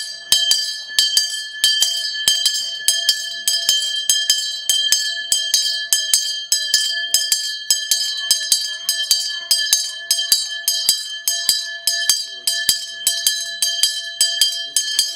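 A metal bell struck or rung over and over at an even pace, about three to four strokes a second, its tone ringing on steadily between strokes.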